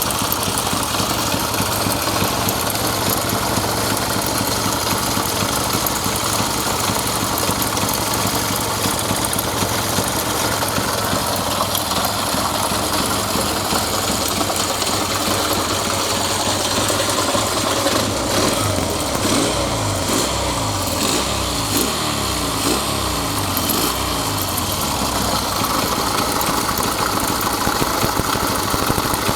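Honda Benly CD125 K3's twin-cylinder four-stroke engine idling, with the idle speed wavering up and down for several seconds past the middle.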